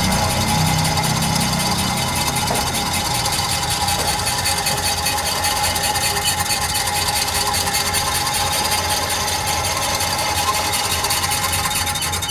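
Meccano gear mechanism running: brass gear trains, a contrate gear and rack segments turning a winch, making a steady rapid clatter of meshing teeth with a steady tone underneath.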